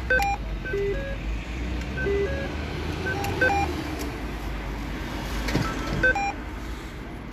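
Street traffic rumbling steadily, with a scattered series of short beeping tones at several different pitches over it; a vehicle passes close about five and a half seconds in.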